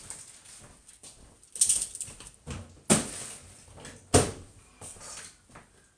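A few sharp knocks and clatters, with rustling between them; the loudest, a knock with some thud in it, comes about four seconds in.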